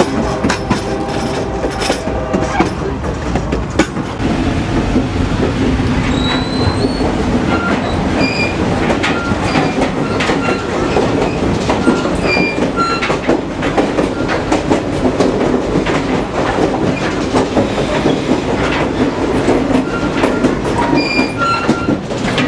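Locomotive horn of the Napa Valley Wine Train sounding for the first two seconds or so. Then the moving train cars: steady running noise with the wheels clacking over rail joints and brief high-pitched wheel squeals.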